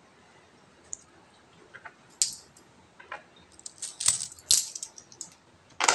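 Philippine peso coins clinking as they are picked up and shuffled from a heap of loose coins: a few scattered clinks at first, then quicker clinking in the second half, the loudest clink near the end.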